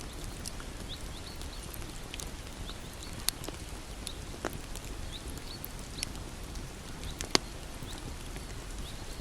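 Wood bonfire burning with a steady low rumble and constant small crackles, broken by two sharp louder pops about three seconds and seven seconds in.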